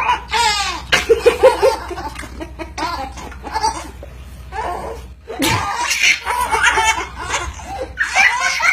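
Laughter in short bursts, with a quick run of ha-ha pulses about a second in.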